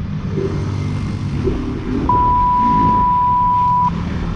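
Motorcycle engine running and wind noise while riding. About two seconds in a single steady high beep starts, lasts nearly two seconds and is the loudest sound.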